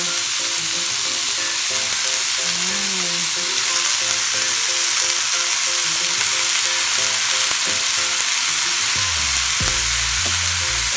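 Chopped upo (bottle gourd) sizzling in hot oil in a frying pan with garlic, onion and tomato: a steady, loud hiss, with the pieces moved about by hand part way through.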